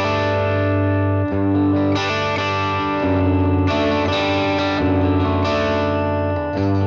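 Electric guitar played through a Fractal Audio FM9's Nuclear Tone amp model and 1x12 Nuclear Tone DynaCab with a ribbon mic, strumming sustained, ringing chords with a change of chord about every second. The amp model is turned all the way up, with the guitar's own volume and tone controls setting how much it drives.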